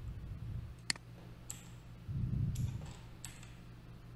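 A few isolated sharp clicks at a computer while card details are entered, about four spread out, the first the loudest. A low muffled swell comes a little past the middle.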